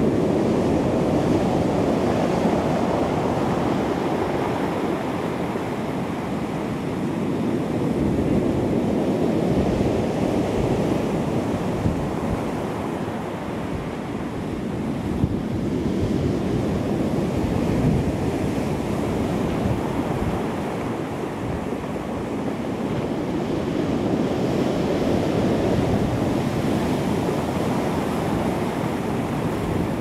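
Heavy surf breaking and washing up a stony cobble beach: a continuous rush of water that swells and eases every eight seconds or so as each wave comes in.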